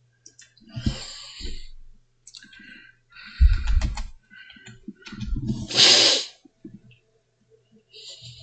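Computer keyboard typing and mouse clicks, with a few heavier knocks and a short loud rush of hiss about six seconds in.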